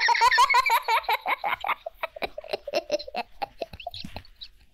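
A small child laughing hard in quick, high-pitched bursts of giggles. The laughter is loudest over the first couple of seconds and trails off in fainter chuckles toward the end.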